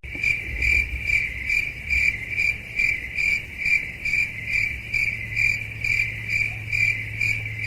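A cricket chirping steadily in an even rhythm, about two chirps a second, over a faint low hum.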